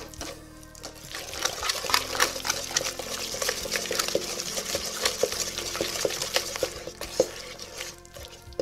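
Wire whisk mashing overripe bananas in a stainless steel mixing bowl: rapid scraping and clicking of the wires against the metal through the soft banana. It picks up about a second in and eases off near the end.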